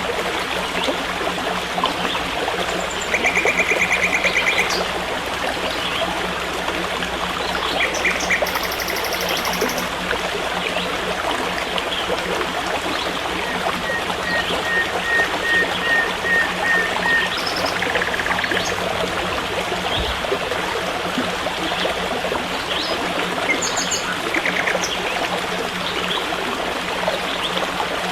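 Running stream water, a steady rushing trickle, with forest birds calling now and then in short rapid chirping trills, one a run of about eight evenly spaced notes partway through. A faint steady low hum runs underneath.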